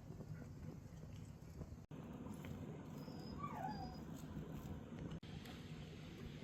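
A single short, wavering animal call about three and a half seconds in, over a faint steady low background.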